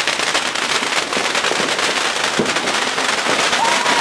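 Fireworks going off at close range: a dense, continuous rapid crackling. A voice cries out briefly near the end.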